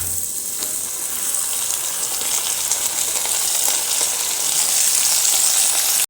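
Sliced calabresa sausage and onion frying in oil in a pan: a steady sizzle that swells slightly and cuts off suddenly at the end.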